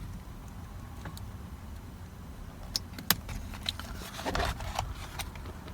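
Small parts being handled during a steering-wheel swap: a few sharp clicks and knocks, with a brief rustle a little past the middle, over a low steady rumble.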